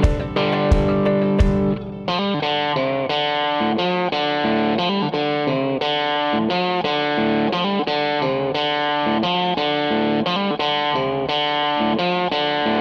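Background music: electric guitar playing a quick run of picked notes, with drum hits in the first two seconds.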